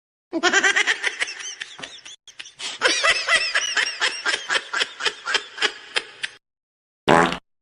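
Meme laughter sound effect: a long run of rapid, high-pitched laughing bursts that stops abruptly, followed near the end by one short separate burst of sound.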